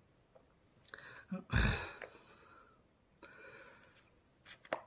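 A man breathing while he is not speaking. A heavy out-breath comes about a second and a half in, a softer breath follows a little later, and a short mouth click comes near the end.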